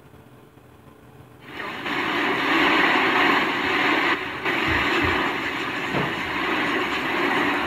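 Loud, steady rushing noise of storm wind and rain heard from inside a car, starting suddenly about a second and a half in after a quieter stretch, with a brief dip partway through.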